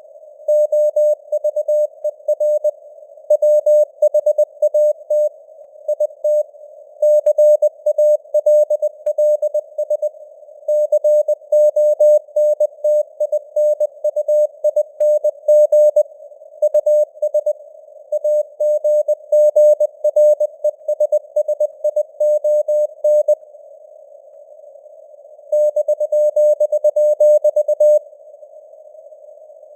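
Morse code sent at 20 words per minute as a keyed tone of about 600 Hz, over a narrow band of simulated radio hiss. The keying stops for about two seconds three quarters of the way through and again near the end, leaving only the hiss.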